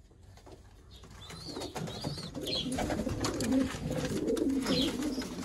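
Domestic pigeons cooing, a wavering low coo that builds up from about a second in, with a few short high chirps and light knocks mixed in.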